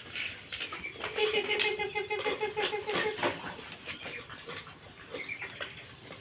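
Pets eating from plates, with scattered small clicks of chewing and feeding, and one drawn-out, wavering whine from an animal lasting about two seconds, starting about a second in.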